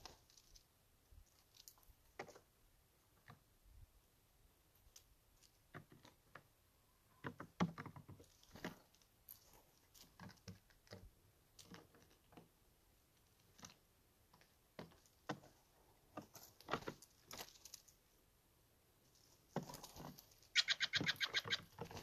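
Steller's jays pecking at in-shell peanuts: scattered light taps and clicks. Near the end, wing flutters as more jays land and a short, harsh, buzzy jay call.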